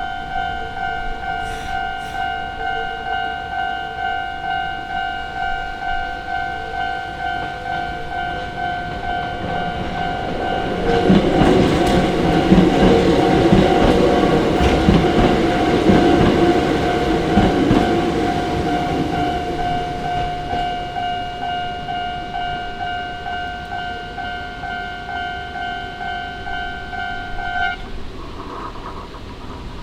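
Japanese level-crossing alarm bell ringing its repeated electronic "kan-kan" tone, about one and a half strikes a second, while a train of the Hakone Tozan Railway line rumbles over the crossing, loudest midway. The bell stops shortly before the end.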